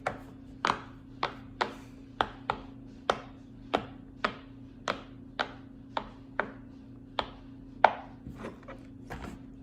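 Silicone push-pop fidget toy (a snail-shaped poppet) being popped bubble by bubble on its louder 'good side': a string of sharp pops, about two a second.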